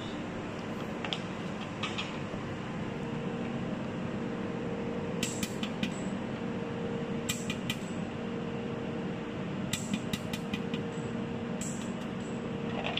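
Desktop pulsed jewelry laser welder firing, each shot a quick run of sharp ticks, in four bursts a couple of seconds apart with a couple of single fainter ticks early on, over the steady hum of the machine's cooling system.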